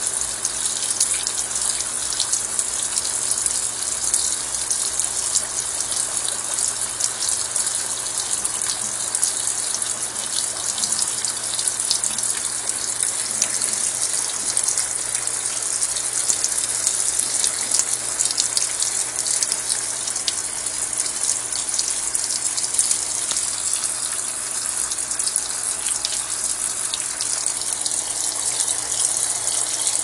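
Brastemp Ative 11 kg top-load washing machine filling with its lid open: water gushing steadily from the fill outlets around the tub rim and splashing down into the drum.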